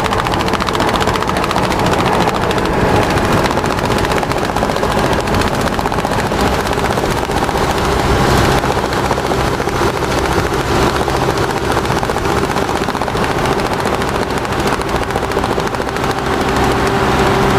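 Large truck driving with its engine running steadily, and a strap flapping rapidly against it in a fast, continuous rattle.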